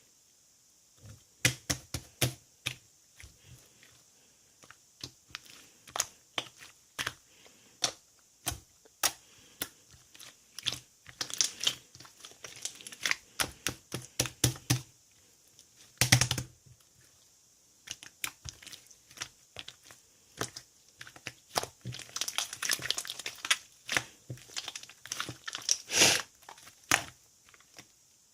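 Slime being squeezed and stretched by hand, giving irregular sharp clicks and pops that come in quick dense runs, with one louder pop near the middle.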